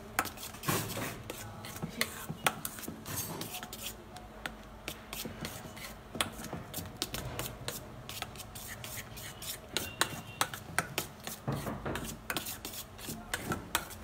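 A mixing utensil scraping and knocking against a stainless steel bowl in irregular strokes, folding whipped cream into a popcorn mousse base.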